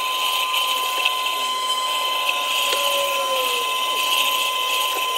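Tormek sharpening machine running while a bowl gouge held in its jig is honed on the leather honing wheel: a steady, even machine whine.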